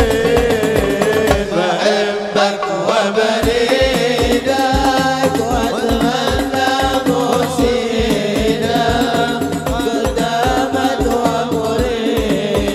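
Islamic devotional singing (sholawat/qasidah): a male voice sings an ornamented, wavering melody into a microphone over hadroh hand drums beating a steady rhythm.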